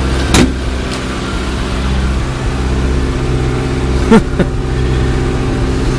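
Suzuki SJ413's carbureted 1.3-litre four-cylinder engine idling steadily just after a cold start, primed with HHO gas, with two brief sharp sounds about half a second and four seconds in.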